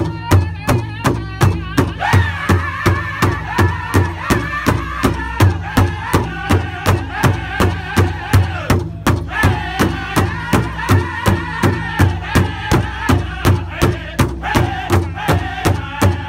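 Powwow drum group: a large bass drum struck in a steady beat, about three strikes a second, under high-pitched group singing that rises in strongly about two seconds in and breaks off briefly near the middle before going on.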